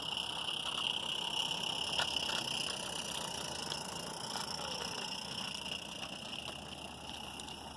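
Small live-steam garden-railway locomotive, a Regner Konrad, running past with a train of log cars: steam exhaust and wheels clicking on the rails, fading as it moves away. A steady high-pitched chorus sounds in the background.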